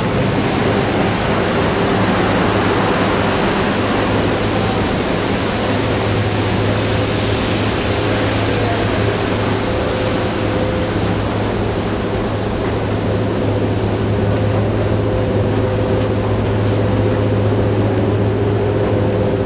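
Steady machinery drone of an underground MRT station entrance: a constant low hum under an even rush of air, with faint steady higher tones.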